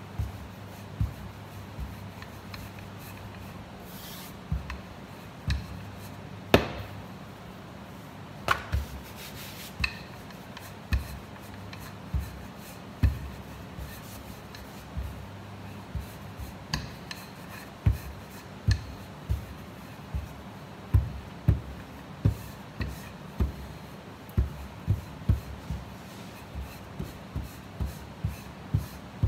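Wooden rolling pin rolling out pizza dough on a stainless steel counter: a rubbing sound with irregular soft thumps, about one or two a second, as the pin is pushed back and forth, and a few sharper knocks on the steel.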